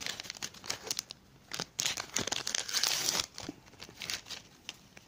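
Paper sticker-pack wrapper crinkling and tearing as it is ripped open by hand, in irregular bursts that thin out near the end.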